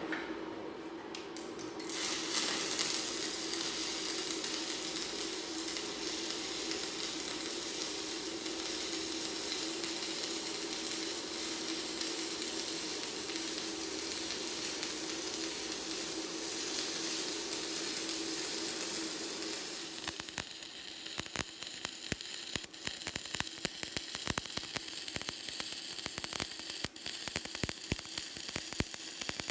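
Stick (MMA) welding arc on a PRO-TEC 100S inverter welder, restruck about two seconds in on a general-purpose electrode whose flux shell has been broken back to bare core wire: a steady crackling sizzle with a hum under it. From about twenty seconds in it turns to a sparser, irregular crackle.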